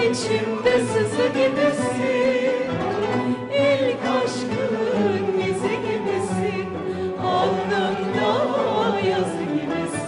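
Music: a singing voice with wavering vibrato over a sustained instrumental backing.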